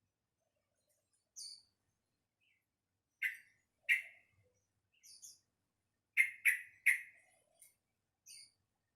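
Young sooty-headed bulbul (trucukan) practising its song: short clear calls, a pair about three seconds in and a quick run of three near the end, with thin high squeaky notes between. It is a juvenile still learning to string its notes into a full volley (ngeropel).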